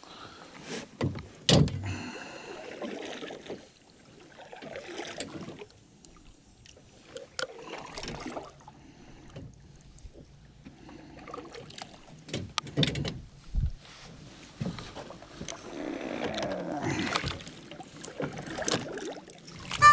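Irregular knocks, clunks and rustles in an aluminum canoe as a caught fish is unhooked and handled, with a sharp click early and a low thump about two-thirds of the way in.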